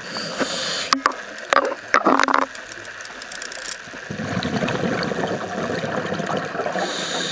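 Scuba diver breathing through a regulator underwater. A few sharp clicks and gurgling bursts come in the first two and a half seconds. From about four seconds in there is a long bubbling rumble of exhaled bubbles, and the hiss of the next inhalation starts just at the end.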